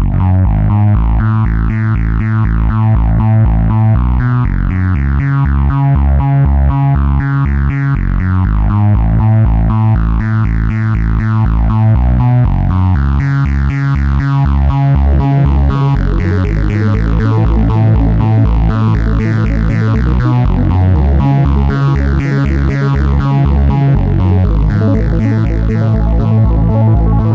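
Electronic synthesizer music with a steady, evenly pulsing bass line and sustained chords.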